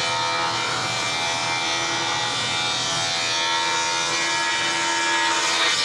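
Straight-line rip saw ripping the edge off a board: a steady sawing sound over the machine's even hum, continuing throughout.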